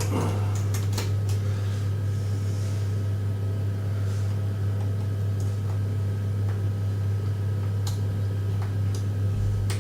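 A steady low hum runs throughout. Over it are a few faint, scattered clicks of a lock pick and tension bar working the pins of a door's pin-tumbler lock.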